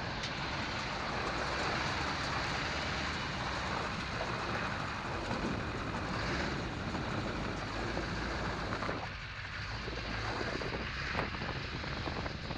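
Duramax diesel-swapped 1967 Chevy C10 on the move: steady engine and road noise mixed with wind rushing into the cab through the open windshield frame. The noise eases briefly about three-quarters of the way through.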